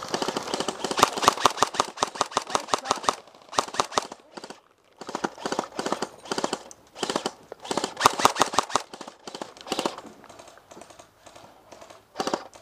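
Airsoft rifle firing full-auto, a rapid stream of clicking shots in long bursts with short pauses, thinning to a few scattered shots near the end.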